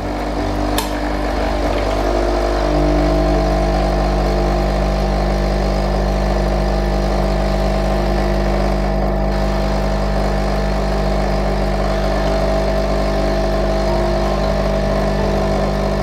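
KRUPS Nescafé Dolce Gusto Oblo capsule machine's pump humming steadily as it pushes hot water through a coffee capsule and dispenses into the cup. A click comes just under a second in, and about two and a half seconds in the hum gets a little louder and changes tone, then holds steady.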